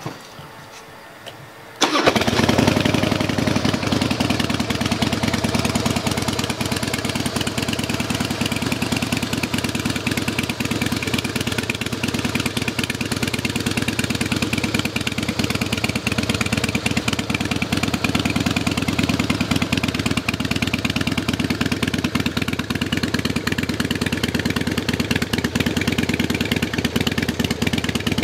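Custom 2006 Harley-Davidson Softail Night Train's V-twin engine firing up about two seconds in, then idling steadily.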